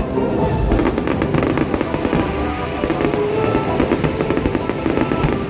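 Aerial fireworks bursting, a dense run of crackles and pops, with background music playing alongside.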